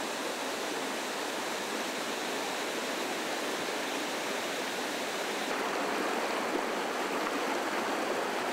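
Fast-flowing river rushing over rocks: a steady roar of white water that grows slightly louder about five and a half seconds in.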